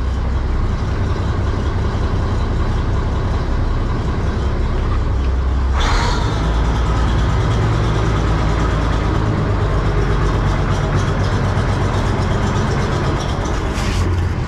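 Bizon combine harvester's SW 400 diesel engine running steadily while the combine is manoeuvred slowly into place, with a short hiss about six seconds in.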